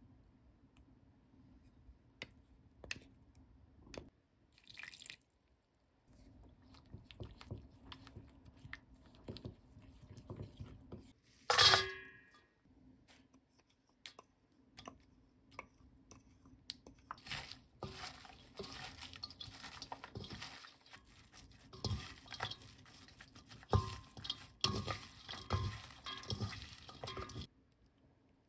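Thick chili seasoning paste being stirred in a glass bowl, light scrapes and clicks, with one sharp ringing clink near the middle. Then stringy stonecrop greens being tossed with the sauce in a stainless steel bowl: a dense wet rustling and squishing through the last ten seconds.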